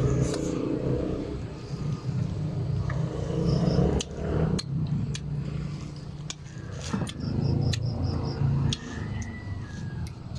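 Close-up eating sounds of santol fruit: sucking and chewing the pulp off the seeds, with wet mouth clicks and smacks, over a steady low rumble. A few quick runs of faint high chirps come and go.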